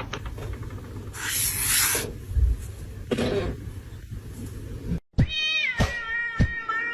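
A cat vocalizing, with two hissy bursts about a second and three seconds in. About five seconds in, a music track with a steady beat cuts in.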